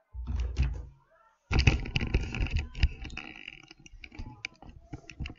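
Handling noise on a live commentary microphone: a heavy bump in the first second, then a loud spell of rubbing and rustling, then a run of light clicks.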